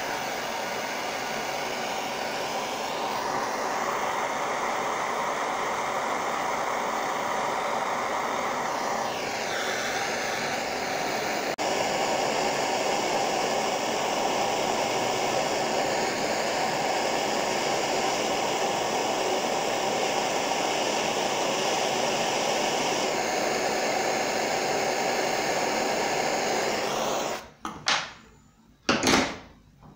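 Handheld gas torch burning with a steady hiss, its tone shifting a few times. The hiss cuts off about 27 seconds in, followed by two short knocks.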